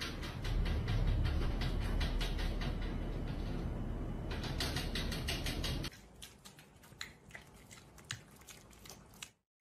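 Rapid scratching and scrabbling of a cat's claws against a wall-mounted air conditioner and the wall below it, over a low rumble. It cuts off abruptly about six seconds in, leaving only faint scattered taps.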